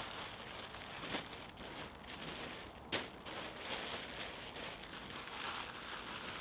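Crinkling and rustling of a small groundsheet tarp as it is folded and rolled up by hand, with a sharper crackle about three seconds in.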